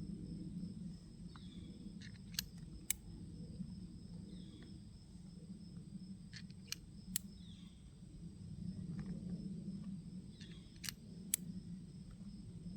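Sharp metallic clicks, mostly in pairs, from a Ruger New Model Blackhawk single-action revolver being loaded by hand one cartridge at a time through its loading gate, the cylinder clicking round from chamber to chamber. A faint high chirp repeats every few seconds behind it.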